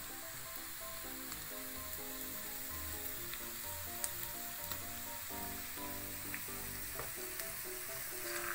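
Chopped shallots, garlic and bird's-eye chilies frying in hot oil in a pan with a steady sizzle, as the aromatics are starting to dry out. Background music of short melodic notes plays underneath.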